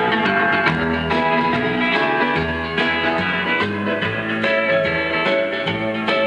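Country record with a guitar-led instrumental intro playing on a 1955 Wurlitzer 1800 jukebox.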